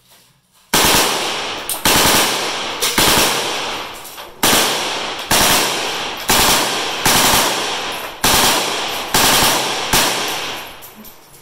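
Bipod-mounted AK-pattern rifle firing a string of about ten very loud reports, roughly one a second, each trailing off in echo before the next.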